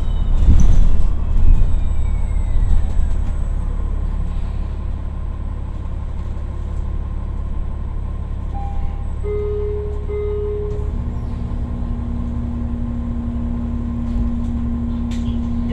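Hybrid-electric city bus (New Flyer XDE40 with BAE HybriDrive series drive) slowing down: the electric drive's whine falls steadily in pitch over the first few seconds while the road rumble fades. Later come two short tones, then a steady low hum as the bus sits in traffic.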